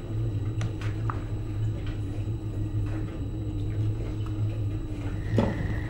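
A steady low hum with a few faint clicks and soft handling sounds as carrot rings are pushed into a salted fish by hand, and a short louder knock near the end.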